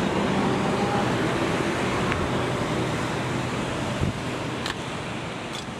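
Steady rushing wind on the phone's microphone over the hum of distant city traffic, with a light knock about four seconds in.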